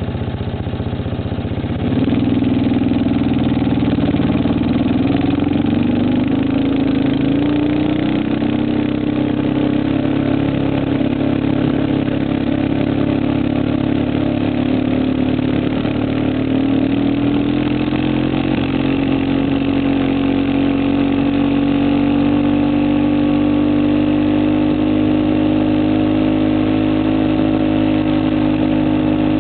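Engine of a vehicle towing a mattress and rider on a rope over a dirt road, heard from on board. About two seconds in it picks up from a lower note, then runs steadily under load, its pitch drifting up and down with speed.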